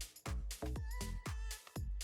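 Background electronic dance music with a steady kick-drum beat and a short held synth note near the middle.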